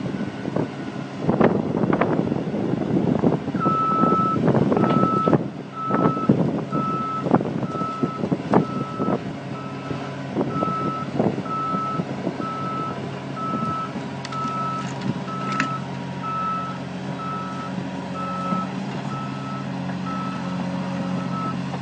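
A heavy diesel construction machine running, its reversing alarm beeping at an even pace from a few seconds in. Sharp metal clanks and knocks, denser in the first half.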